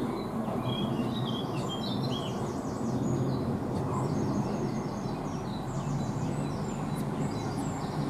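GWR Class 165 Networker Turbo diesel unit running slowly into the platform, a steady low rumble. Over it, a small bird sings several phrases of quick repeated high notes.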